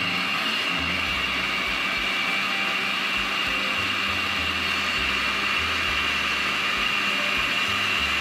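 Countertop blender with a glass jar running steadily with a high whine, liquidising water, banana, cucumber, parsley and Swiss chard into a smooth green smoothie.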